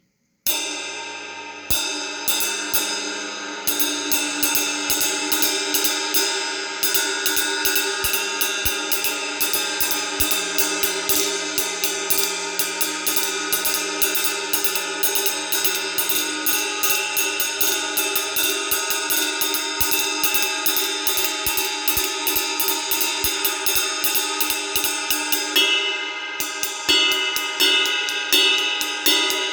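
Paiste cymbals (15" 3000 Heavy hi-hats and 22" Power Ride) being played. Two single strikes ring out, then a steady, fast pattern of strokes starts about three seconds in and builds a continuous ringing wash.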